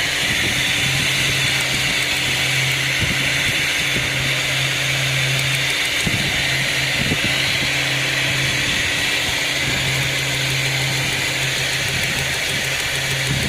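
Ford Falcon BF engine idling steadily with a constant low hum and hiss. The engine runs while its ignition coils are pulled one at a time to find the cause of a misfire.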